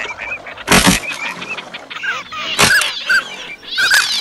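Ducks calling over and over in short, rising-and-falling whistled notes. Two loud sudden bursts cut across the calls, the first under a second in and the second a little past halfway.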